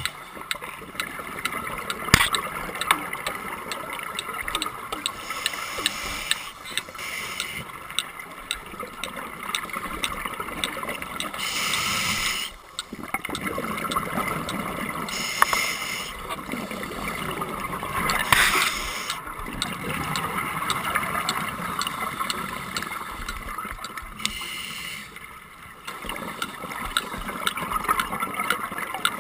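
Underwater sound of scuba breathing: a regulator hissing in bursts about a second long every few seconds, with exhaust bubbles gurgling and occasional sharp clicks.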